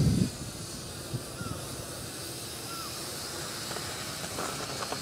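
A loud low rumble cuts off just after the start, leaving a faint steady outdoor hiss. A few short high chirps sound over it.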